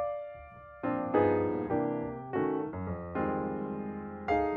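Background music: a piano playing notes and chords that are struck and die away. The music dips briefly just before a second in, then the chords resume.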